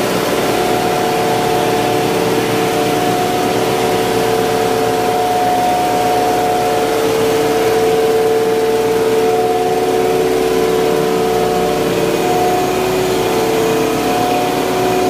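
Ice plant machinery running steadily: a loud, constant mechanical hum with two held whining tones that dip and shift slightly now and then.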